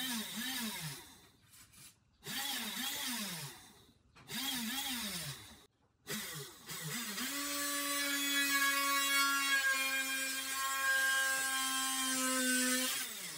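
Small DC motor of a homemade mini drill press whining up and back down in pitch in several short bursts as it is switched on and off. About seven seconds in it runs at a steady speed while the bit drills into a thin wooden board, then winds down near the end.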